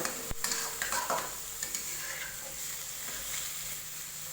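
Spice mix sizzling as it fries in hot oil in a pan, with a spatula stirring and scraping through it during the first second or so and a sharp click about a third of a second in.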